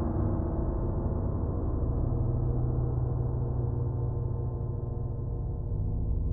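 Background music: a slow ambient piece of sustained low, ringing tones with no beat.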